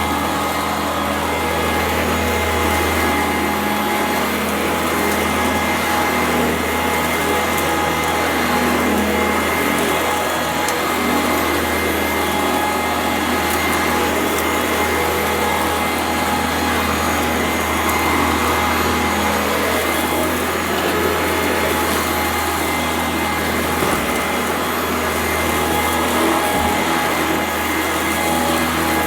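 Sanitaire SC899E commercial upright vacuum cleaner running steadily. It crunches and crackles as it sucks up gritty dirt.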